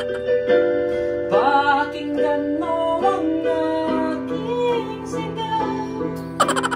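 Portable electronic keyboard being played: held chords with a melody over them and a quick run of notes near the end, with a voice singing along in places.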